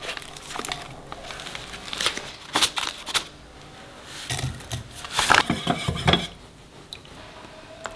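A plastic packet of food-grade alkali rustles as it is handled, then wooden chopsticks stir water in a stainless-steel pot. The chopsticks tap and clink against the metal sides in a quick run of sharp clicks a little past the middle.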